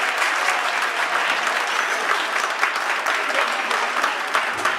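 An audience of schoolchildren and adults applauding, many hands clapping at once.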